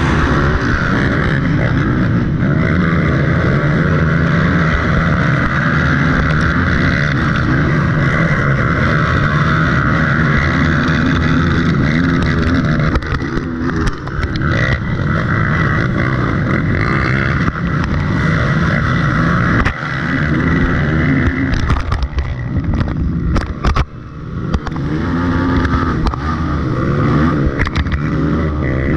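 Race ATV (quad) engine running hard at high throttle, heard from a camera mounted on the machine as it races away with other quads. The engine note dips briefly twice in the second half, and a scatter of sharp knocks comes in as the ground gets rough and muddy.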